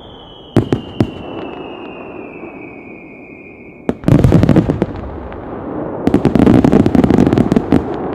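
Fireworks: a whistle slowly falling in pitch for about four seconds, with two sharp bangs about a second in. Then a bang followed by dense crackling from the shell bursts, and a second, longer run of crackling near the end.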